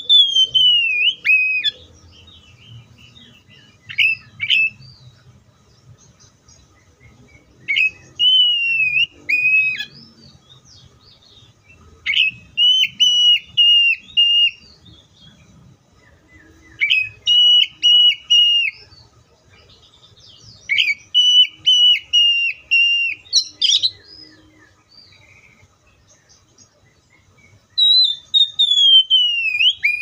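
Oriental magpie-robin (kacer) singing loud, clear whistled phrases every few seconds with short quiet gaps between. Some phrases are single whistles sliding down in pitch; others are quick runs of repeated notes, about four a second.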